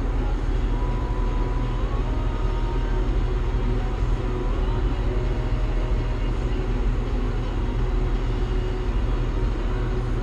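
John Deere 7800 tractor's six-cylinder turbo-diesel engine running steadily with a low rumble.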